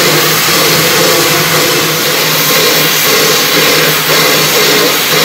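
Narrow-gauge NA class 2-6-2T steam tank locomotive standing with steam up, venting steam in a loud, steady hiss.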